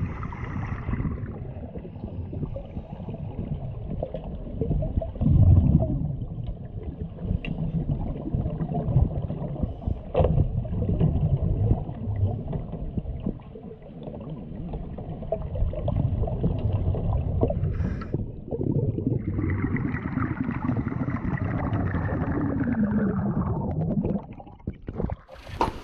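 Water gurgling and sloshing with a muffled, uneven rumble, as in a helicopter underwater escape trainer going under. A louder rushing stretch comes about three-quarters of the way through, then it fades, and a sharp burst comes at the very end.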